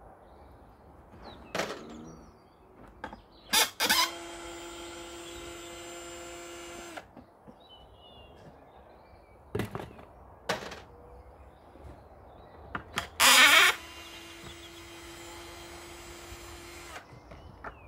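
Hychika DD18F cordless drill driver backing decking screws out of timber: the motor runs twice in steady whines of about three seconds each, each starting with a short loud burst as the bit bites. A few sharp knocks on wood come between the runs.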